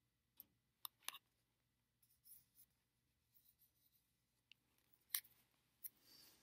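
Faint handling noise of a paper card held and pointed at close to the microphone: scattered sharp clicks, the loudest about five seconds in, with soft rustles between.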